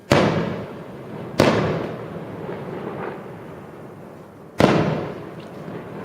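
Fireworks going off: three loud bangs, the second coming about a second after the first and the third a few seconds later, each followed by an echo that dies away over a second or so.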